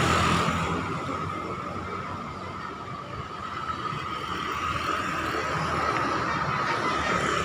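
Bus engine running with a low rumble, under a steady high tone held throughout.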